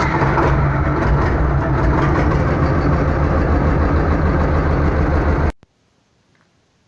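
T-25 tractor's two-cylinder air-cooled diesel running steadily just after starting. It cuts off suddenly about five and a half seconds in.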